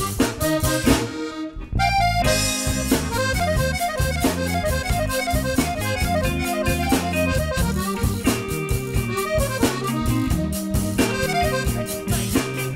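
Instrumental background music with a steady beat, dipping briefly about two seconds in before picking up again.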